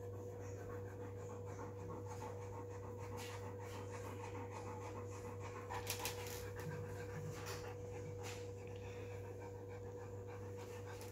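Newfoundland dog panting rapidly and steadily in first-stage labour. A brief rustle of cloth bedding about six seconds in.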